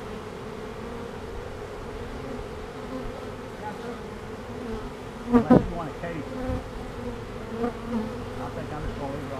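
Honeybees of a freshly hived swarm buzzing at the hive entrance, a steady hum, with one louder buzz that swells and fades about five seconds in.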